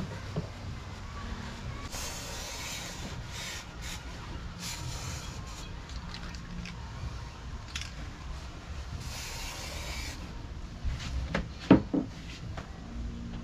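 A paintbrush rubbing Hammerite paint onto a sanded, rust-spotted metal part, heard as a few separate bursts of scratchy rubbing, with a few sharp knocks near the end.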